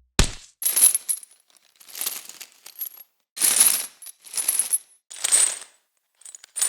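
A heavy punching bag struck about once a second, seven times, each hit followed by a brief metallic jingle from its hanging chain.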